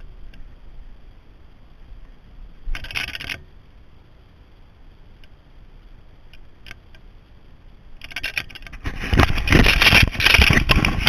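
Handling noise right on the camera's microphone: a short scrape about three seconds in, then loud rubbing and knocking near the end as a hand grabs and covers the camera.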